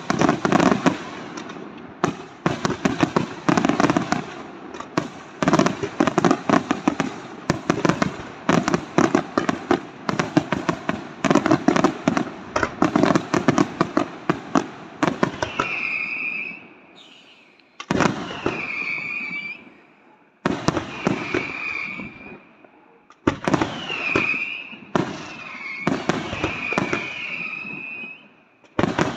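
Aerial fireworks display: a rapid barrage of shell bursts and crackling for about the first half. Then come shorter spells of a high, wavering tone over hiss, with abrupt breaks between them.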